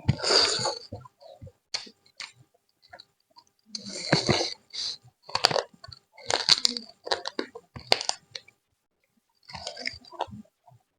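Close-miked eating sounds: a person chewing and smacking on chicken curry and rice, in irregular bursts with short pauses between mouthfuls.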